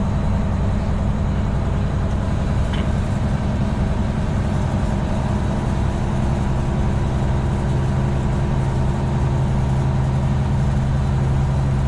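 Semi truck's diesel engine running steadily on the road, heard from inside the cab as a low drone with road noise. A low engine tone grows a little stronger about halfway through and then holds.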